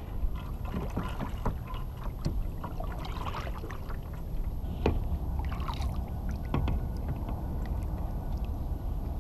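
Steady wind rumble on the microphone aboard a small kayak on open water, with scattered light knocks and clicks from the hull and the fishing rod and reel.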